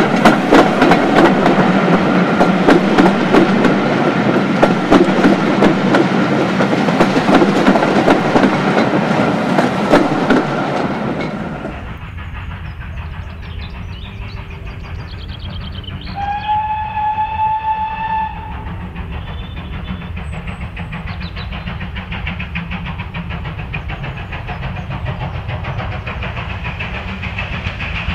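Passenger coaches running past close by, their wheels clattering over the rail joints, until a cut about 11 seconds in. Then a steam locomotive whistle sounds one held note of about two seconds. Near the end the locomotive's rhythmic exhaust beats grow louder as it approaches out of a tunnel.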